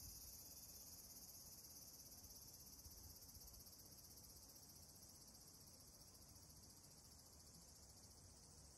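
Faint, steady high-pitched chorus of insects, a continuous fine trilling that grows slightly fainter, over a low rumble.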